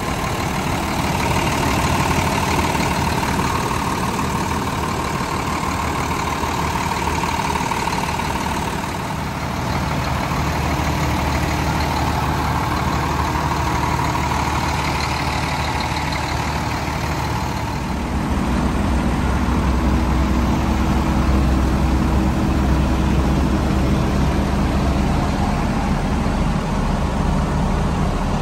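Hino J08E inline-six turbo diesel of a medium-duty box truck idling steadily, heard with the hood tilted open. The low engine note grows louder about two-thirds of the way through.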